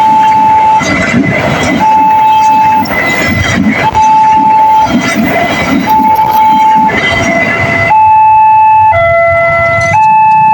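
Railway level-crossing warning siren sounding an electronic two-tone wail, switching between a low and a high tone about once a second, with a train rumbling through the crossing underneath. From about three-quarters of the way in, the tone pair shifts lower and gets slightly louder.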